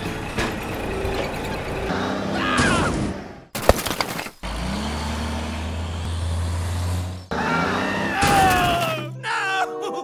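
Dubbed cartoon sound effects over toy construction vehicles: clattering, a sharp noisy burst, then a vehicle engine sound effect running steadily for about three seconds after a rising start. Gliding cries follow, and a short bit of music near the end.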